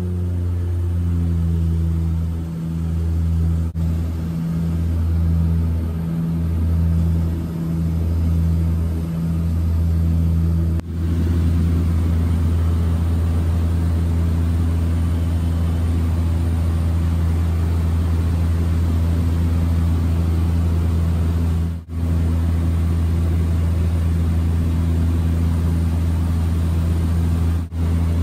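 Cabin drone of a DHC-6-300 Twin Otter floatplane's two Pratt & Whitney PT6A turboprop engines and propellers in cruise, heard inside the cabin: a steady deep hum that wavers in the first several seconds, with a few brief dropouts.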